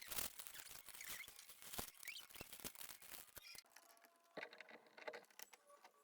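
Faint, scattered clicks and light taps of small plastic Lego pieces being handled, more frequent in the first few seconds and sparser after.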